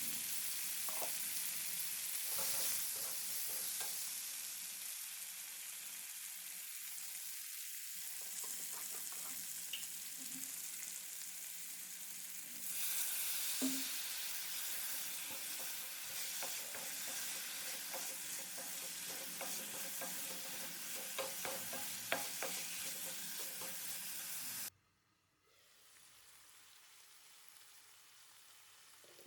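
Cut potatoes frying in oil with onion and spice paste in a kerahi, a steady sizzle with small clicks as they are stirred. The sizzle drops off suddenly about 25 seconds in, leaving a faint hiss.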